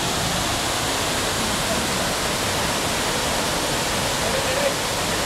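Abbey Falls, a waterfall swollen with monsoon water, pouring down a rock face close by: a steady, loud rush of falling water.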